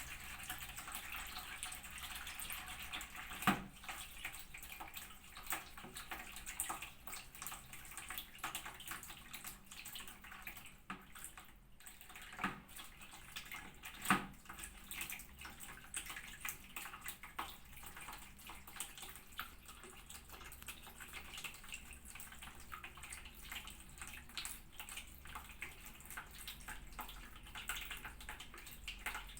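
Water splashing and trickling in a small room as a cat is bathed, with many small irregular splashes and drips. Two sharper splashes or knocks stand out, one early and one about halfway through.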